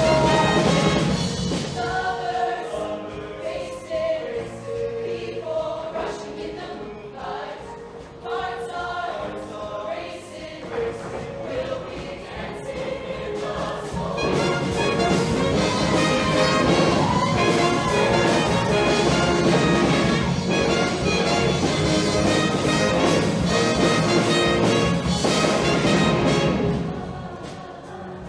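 Show choir singing with instrumental accompaniment: a softer passage with clear sung melody lines, swelling to a fuller, louder ensemble about halfway through, then dropping back near the end.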